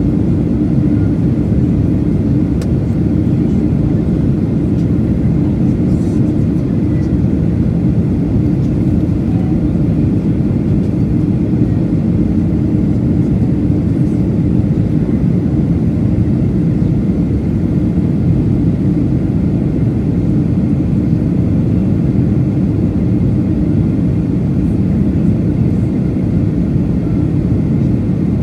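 Steady low roar of an airliner's jet engines and rushing air, heard inside the passenger cabin beside the engine during descent.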